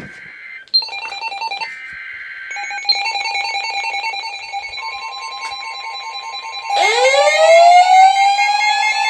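Emergency Alert System broadcast tones: short raspy data bursts of the SAME header in the first seconds, then a steady alert tone from about five seconds in, over other electronic tones. About seven seconds in, a tone sweeps upward and levels off.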